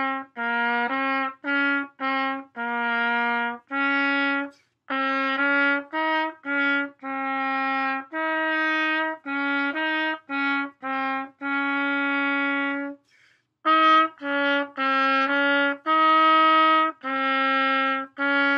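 Pocket trumpet playing a concert A-flat scale exercise, slurring two notes and tonguing two, in a run of short notes with a few longer held ones. A brief pause for breath comes about thirteen seconds in.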